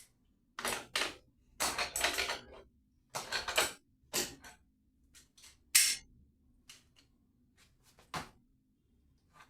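Tools and metal tap fittings being worked on a kitchen sink tap being refitted: irregular short clicks and scrapes in quick clusters, thinning to a few lighter ticks in the second half.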